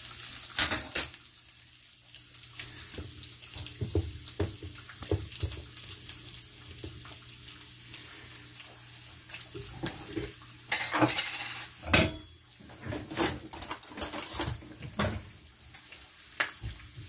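Kitchen clatter of dishes and utensils: scattered clicks and knocks, with a few louder knocks in the second half.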